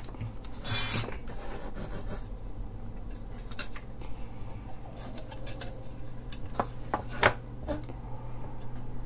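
Hands handling and turning over a small amplifier circuit board with its metal end panel and sockets on a wooden bench: a scrape about a second in, then scattered light clicks and knocks, the sharpest about seven seconds in, over a steady low hum.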